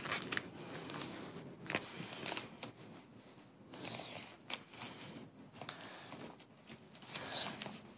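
Stickers being picked and peeled off a paper sticker sheet: faint scattered rustles and small paper ticks, with short peeling rasps about four seconds in and near the end.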